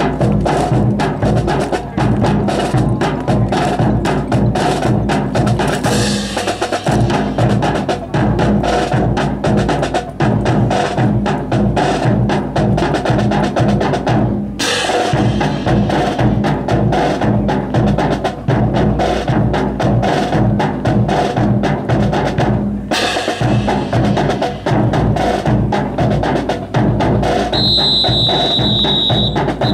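Marching drum cadence on snare and bass drums, a steady beat with rapid sharp strokes, brief breaks about seven and fourteen seconds in. A high steady tone sounds for about two seconds near the end.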